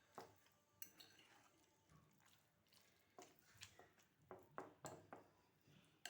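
Near silence, broken by a string of faint short clicks and soft squishing from handling the chopped dried fig, garlic and olive-oil mixture.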